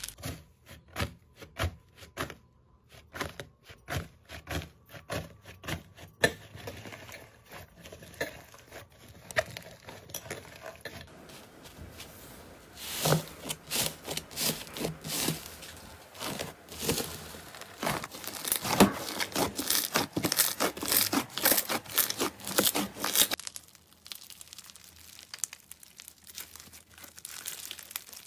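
Close-up crackling and tearing of slime being pulled apart and squeezed by hands, over several short clips. The foamy cloud slime at first gives sparse crackles and rips; the loudest, densest crackling comes in the middle, as hands press into slime covered with paper slips; it is quieter near the end.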